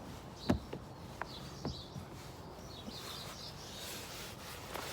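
Birds chirping in the background, with a few sharp clicks or taps, the loudest about half a second in, and a brief rustling noise near the end.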